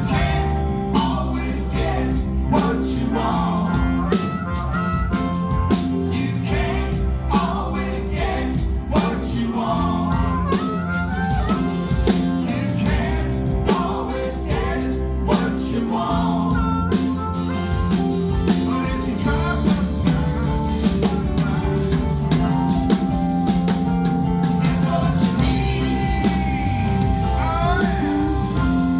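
Rock band playing live, with singing over a drum kit keeping a steady beat.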